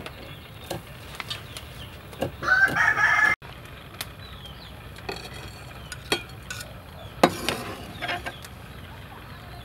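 A rooster crows once, about two seconds in, the loudest sound, cut off abruptly. Around it, scattered knocks of a cleaver on a wooden chopping block as chopped red chilies are worked and scraped off the board.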